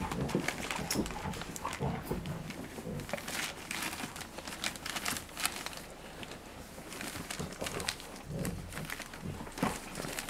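Puppies play-fighting on newspaper: the paper crinkles and rustles under their paws and bodies, with occasional small grunts from the puppies.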